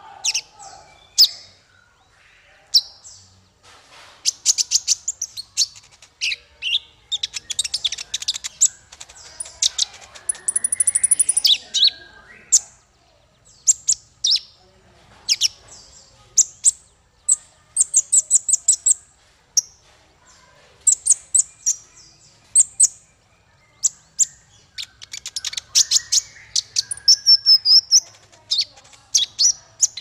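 Male purple-throated sunbird (kolibri ninja) singing: quick strings of high, sharp chirps and short twittering trills, coming in bursts with brief pauses between them.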